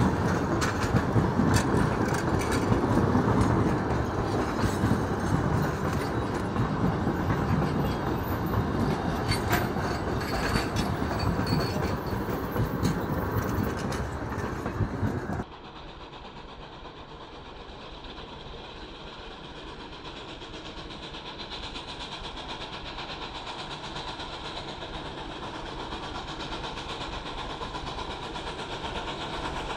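Durango & Silverton narrow-gauge passenger coaches rolling past close by, their wheels clicking over the rail joints. About halfway through, the sound cuts to a much quieter steady background that slowly grows louder as the distant train approaches.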